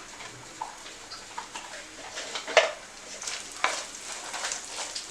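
Black pepper, cumin, ginger, garlic and onion sautéing in oil in a pan, a light steady sizzle while being stirred, with scattered sharp clicks and taps, two louder ones about two and a half and three and a half seconds in.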